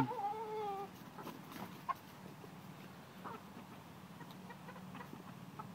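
A hen gives one drawn-out, slightly wavering call at the start, then only faint scattered ticks over a steady low hum.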